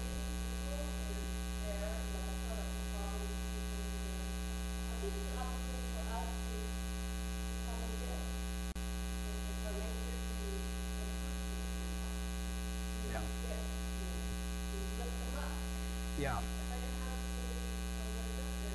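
Steady electrical mains hum, with a faint, distant woman's voice asking a question off-microphone underneath it.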